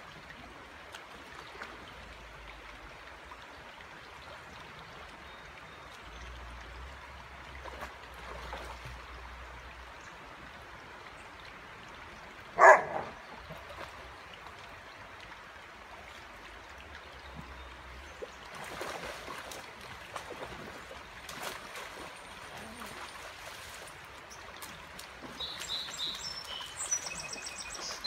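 Creek water running steadily while a dog wades and splashes in it. A single short, loud cry comes about halfway through, and birds chirp near the end.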